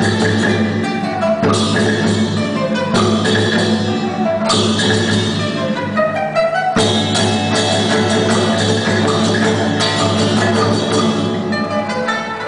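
Live Chinese orchestra music: plucked strings with drums and percussion, the texture changing abruptly several times.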